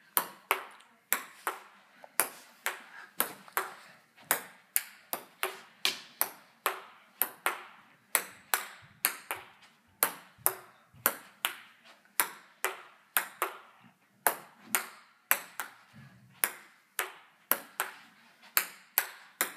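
Table tennis rally: a celluloid-plastic ping-pong ball clicking off paddles and the table in a steady back-and-forth rhythm, about two to three knocks a second, kept up without a break.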